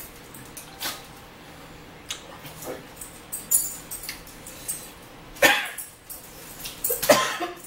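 Close-up eating sounds: a fork clicking against a plate and chewing, with a few brief squeaky sounds with some pitch. The loudest of these come about five and a half seconds in and again near the end, the last sliding down in pitch.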